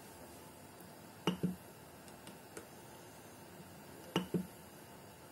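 MPCNC pen plotter clicking: two pairs of short, sharp clicks about three seconds apart, with a few fainter ticks, over a faint steady hiss.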